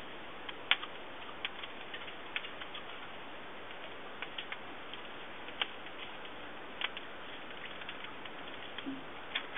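Charcoal fire in a kamado grill crackling: scattered, irregular sharp pops and clicks over a steady hiss.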